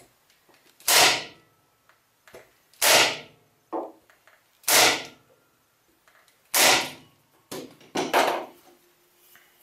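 Corded electric staple gun firing four times, about two seconds apart, driving staples through a cardboard tube into the plastic stub inside it. Softer knocks of the tube being turned and handled come between shots and near the end.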